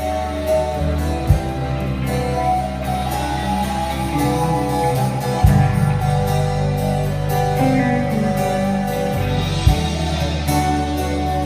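A live band playing during a sound check: guitar over held bass notes, with a short low thump about every four seconds.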